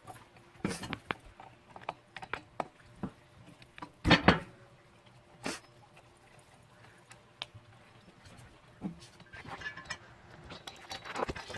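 Scattered small metallic clicks and taps of an Allen wrench working the screws of a scooter's handlebar clamp, with a louder knock about four seconds in and another a little after five seconds.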